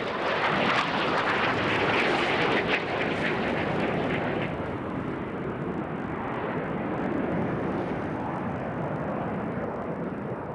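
Jet noise from a pair of BAE Hawk jets flying a low pass. The sound is loudest and sharpest for the first four seconds or so, then the high part fades as they pull away, leaving a duller rumble.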